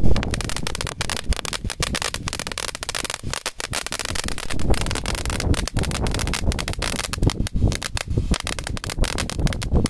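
Ground fountain firework burning: a steady hiss dense with small crackles.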